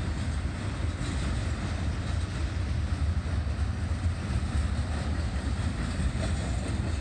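Norfolk Southern container freight train rolling past: a steady low rumble of the cars on the rails.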